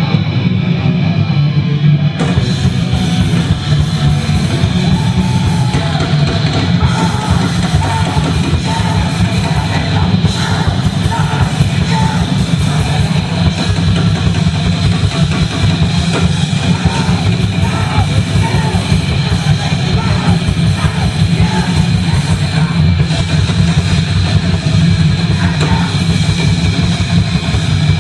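Hardcore punk band playing live: distorted guitar and bass with fast drums and shouted vocals. Drums and cymbals come in about two seconds in, filling out the sound.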